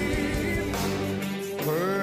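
A song with a sung vocal line over instrumental backing: segment intro or bed music.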